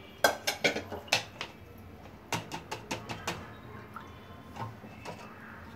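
Small plastic strainer tapped against the rim of a glass jar, sharp clicking knocks in two quick runs with a few softer ones after, shaking the last strained ghee out of the browned residue into the jar.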